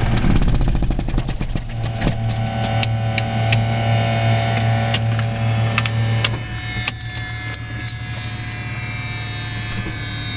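Cessna 182R in the cabin on the ramp: the engine's beats spread out over the first two seconds as it runs down, then a steady low hum with a few sharp clicks. After about seven seconds the hum drops away and a high whine slowly falls in pitch.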